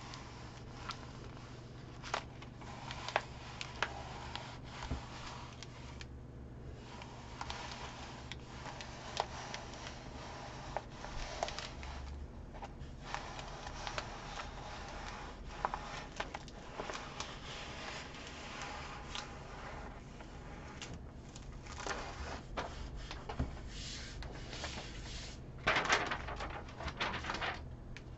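Vinyl decal on transfer tape being pressed and rubbed down onto a ceramic tile by hand: quiet scattered rubbing and small taps, with a louder stretch of rubbing near the end.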